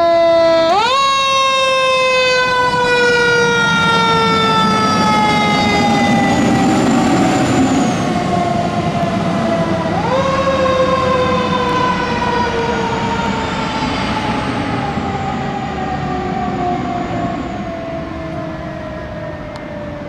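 Fire engine's siren sounding as the engine passes, twice winding up quickly in pitch, about a second in and again about ten seconds in, then each time sliding slowly down, over the rumble of the truck's engine. It grows fainter near the end as the engine drives away.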